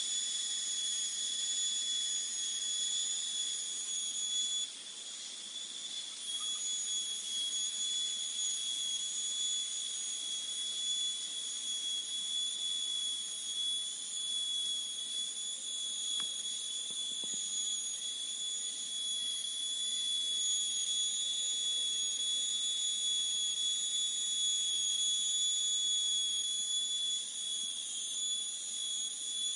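Steady, shrill insect chorus droning without a break, with a slight dip in loudness about five seconds in.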